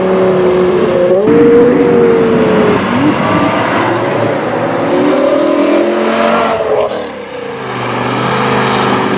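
BMW M5 E60 V10 engines accelerating hard past the listener, the pitch climbing over several seconds. About seven seconds in the sound drops off and another car pulls away at lower, steadier revs.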